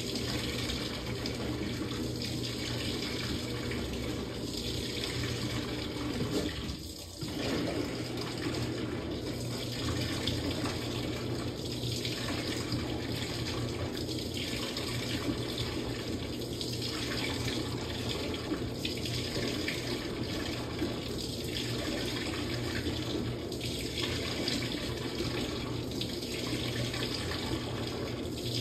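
Samsung top-load washing machine taking in water early in a quick wash cycle: a steady rush of water over a low hum. The rush eases briefly about seven seconds in and swells and fades slightly about every two and a half seconds.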